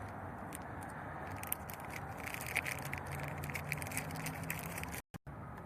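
Faint clicks and scrapes of plastic replacement door-handle parts being handled, over steady background noise.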